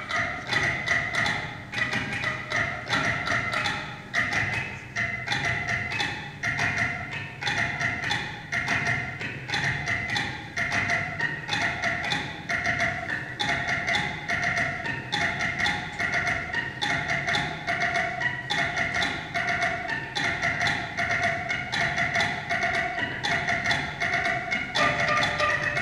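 The Rhythm Machine, a long tube studded with cable ties and spun on a wood lathe, with the ties flicking against small objects the players hold to it. It gives a fast, even stream of clicks like wood blocks, ringing on a few held pitches that change near the end.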